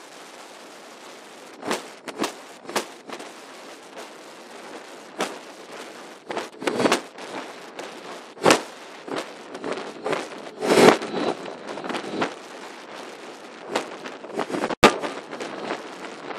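Wind buffeting the microphone of a moving four-wheeler at about 50 km/h, coming in irregular gusts and crackles, with one sharp click near the end.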